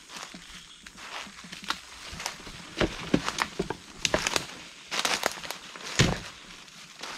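Footsteps crunching through dry leaf litter and brushing past undergrowth, an irregular series of crackling steps, loudest about three, five and six seconds in.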